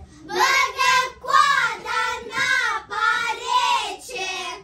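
Young children singing a song together, several held, gliding notes one after another.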